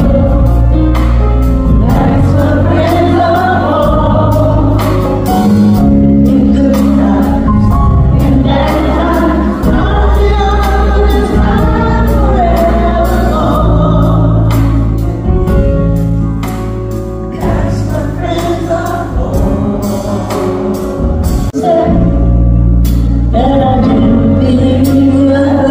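Background music: a song with singing voices over a steady beat and bass.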